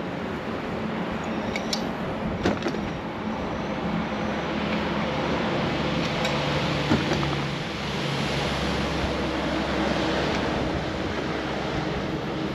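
Steady rushing noise of riding a bicycle: wind over the microphone and tyres rolling on the path, with a few sharp clicks.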